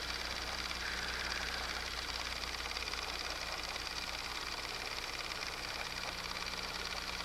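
Steady hiss with a low electrical hum: the background noise of an old home recording, with no distinct sound event.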